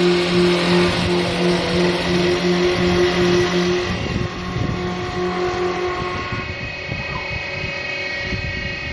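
CNC wood-turning lathe running and cutting wood: a steady motor hum under a dense, harsh rasp of the cutter on the turning workpiece. The hum drops away about six seconds in while the rasping goes on.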